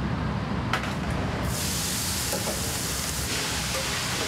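Kitchen noise in a ship's galley: a steady low hum under everything, a single click just under a second in, then a high, even hiss that starts abruptly about a second and a half in and holds.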